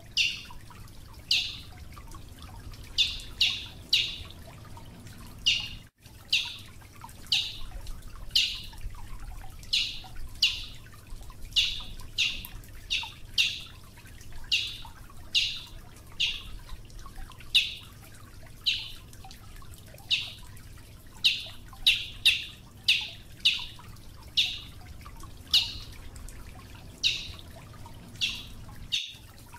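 Brazilian tanager calling: short, sharp, high call notes repeated about once or twice a second, now and then in quick runs of three or four.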